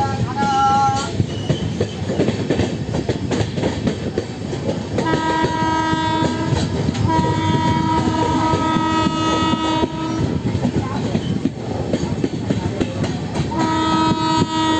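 Wheels of LHB coaches clattering over the rails, with a WAP-5 electric locomotive's horn sounding three steady blasts: a short one about five seconds in, a longer one right after, and another near the end.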